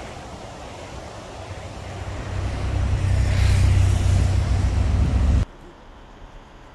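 A steady rushing noise, then a low, steady engine rumble that swells up about two seconds in and cuts off abruptly a little past five seconds.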